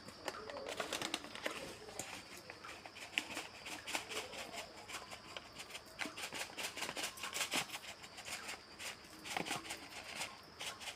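Chicken simmering in a pot of water: soft, irregular bubbling and crackling that comes in small clusters, with a faint steady high whine behind it.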